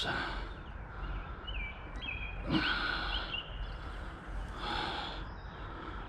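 A man breathing out heavily twice close to the microphone, over a steady outdoor background hiss, with a few faint bird chirps about two seconds in.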